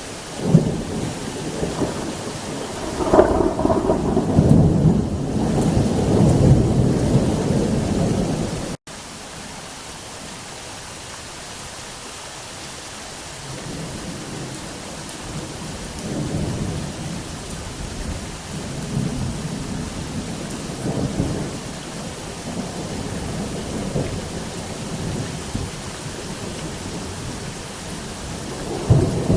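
Thunder over heavy rain: a sharp crack about half a second in opens a long, loud rumble that breaks off abruptly about a third of the way through. Then softer rolling thunder comes and goes under a steady rain hiss, and another loud rumble begins at the very end.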